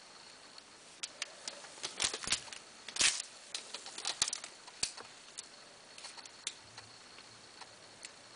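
Bars of hard salt soap being handled on a table: a run of light clicks, knocks and scrapes as they are picked up, turned and set down, busiest and loudest about two to three seconds in, thinning to occasional ticks after five seconds.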